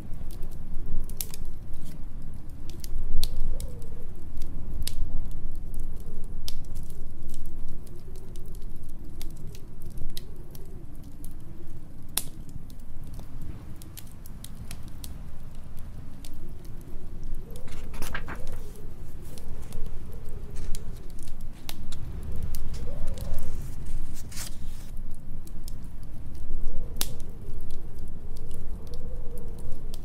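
Fireplace fire crackling with frequent sharp pops, over a low storm wind that rises and falls in pitch and strength.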